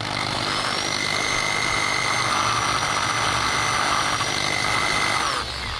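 Electric drill spinning a fine polishing wheel against an alloy wheel: a steady motor whine over a hiss. The whine rises as the drill spins up at the start and falls away as it winds down near the end.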